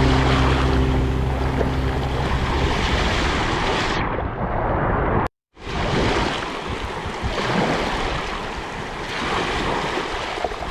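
Sea waves washing, a steady rushing surf with wind. Background music fades out over the first two seconds, and the sound cuts out for a moment about five seconds in before the surf resumes.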